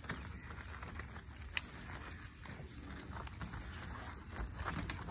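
Battery-powered spray pump spraying car-wash shampoo onto a tractor's painted bodywork: a light patter of spray with scattered small clicks over a steady low hum.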